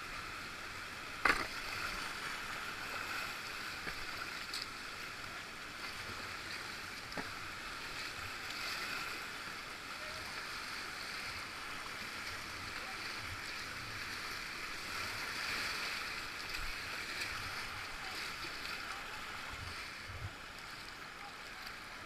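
Whitewater river rushing steadily around a kayak, with a sharp knock about a second in and a fainter one near seven seconds.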